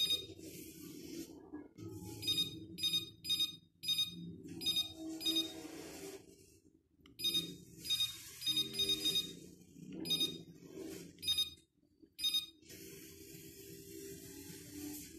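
Rapid runs of short electronic beeps, one for each button press, as the clock and timer of a robot vacuum are set on its remote control.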